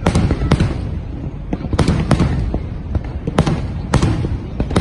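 Aerial fireworks bursting overhead: an irregular series of sharp bangs, roughly two a second, over a continuous low rumble from the display.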